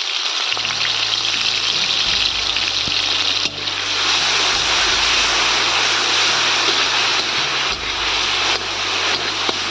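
Onion paste sizzling in hot oil in a pan: a steady hiss with a low hum underneath, dipping briefly about three and a half seconds in.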